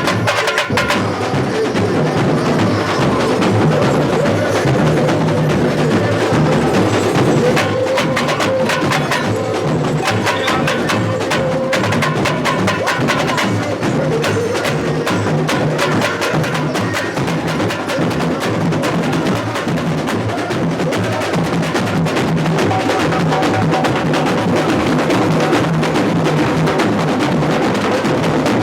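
Samba school bateria playing a samba groove: bass drums, snare drums and other hand percussion in a loud, steady rhythm that does not let up.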